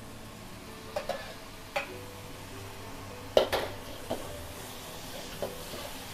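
Metal ladle scraping and clanking against a wok while stir-frying noodles, over a steady sizzle. The clanks come every second or so, the loudest a little past three seconds in.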